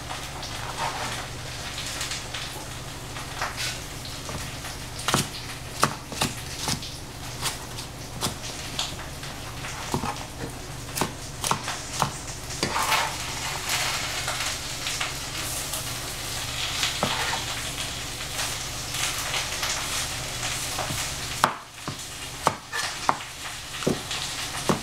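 Cooking oil sizzling in a frying pan with a steady hiss, broken by irregular sharp clicks and knocks of a utensil in the pan.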